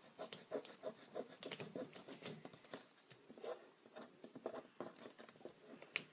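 Fingertips and fingernails rubbing and picking at a tabletop to get stray glue-roller adhesive off: faint, irregular small scratches and ticks.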